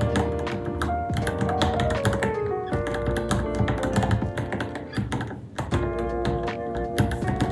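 Fast typing on a Varmilo Minilo mechanical keyboard, many key clicks a second with a brief pause about five and a half seconds in, over background music.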